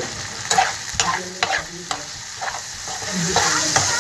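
Vegetables frying and sizzling in a frying pan while they are stirred, with repeated knocks and scrapes of the utensil against the pan.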